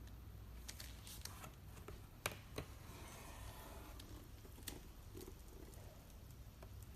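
Faint handling noise: a few scattered light clicks and taps, the sharpest about two seconds in, over a low steady hum.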